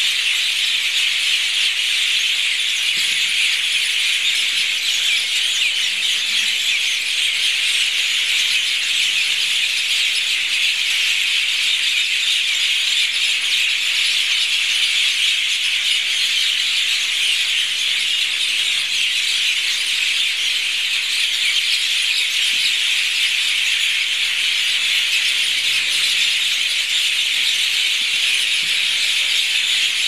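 A large flock of birds in a tree at roost, their many calls blending into a dense, unbroken chatter that stays steady throughout.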